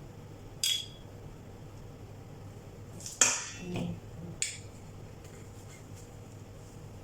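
A few sharp clinks of a utensil against kitchenware, likely a spoon against a bowl while dressing is measured in. There are four clinks, the loudest about three seconds in.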